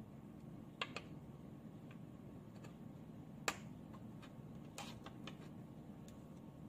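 Small, irregular clicks and taps of a plastic car key fob shell and its parts being handled and fitted together: a double click about a second in, the sharpest click midway, and a few more soon after.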